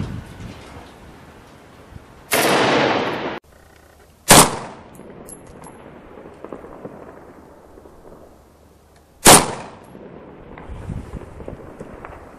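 Close gunfire, likely from an M16-pattern rifle. First comes a harsh blast of about a second, about two seconds in, which cuts off suddenly. Then come two single rifle shots about five seconds apart, each with a short echo; these are the loudest sounds.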